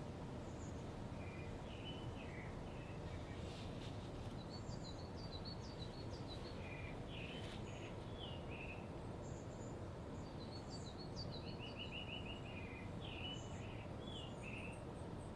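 Several birds chirping and calling in short high notes and whistles, with a quick run of repeated notes about two-thirds of the way through, over a steady low background rush.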